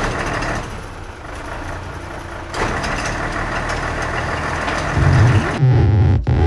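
Recorded truck engine sound effect: a diesel-like engine running, which starts and stops abruptly. It gets louder about two and a half seconds in, with a heavy low rumble near the end.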